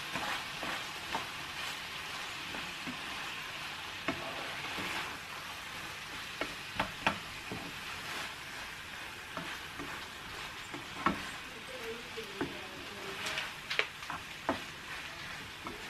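Vegetables, curry paste and dry rice sizzling in a frying pan while a metal spoon stirs them, with scattered clicks and scrapes of the spoon against the pan.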